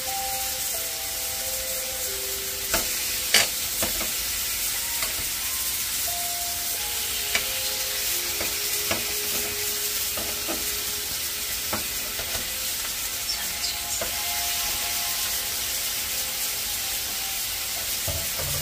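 Thin slices of pork belly sizzling steadily on a hot cast-iron grill pan, with a few sharp clicks of metal tongs against the pan as another slice is laid in.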